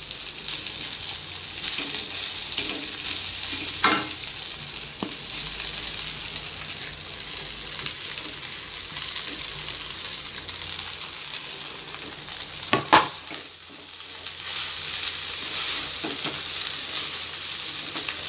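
Soaked flattened rice (aval) sizzling in hot oil in a kadai while it is stirred and lightly fried with a spatula, a steady frying hiss. Two sharp knocks, a light one about four seconds in and a louder one near thirteen seconds.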